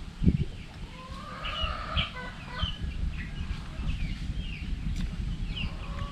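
A single low thump just after the start, then chickens clucking with short, repeated calls.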